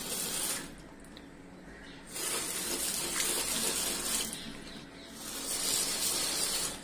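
Water spraying from a handheld trigger spray head onto a chili plant's leaves over a sink, in three spurts with short pauses: a brief one at the start, then two longer ones from about two seconds in.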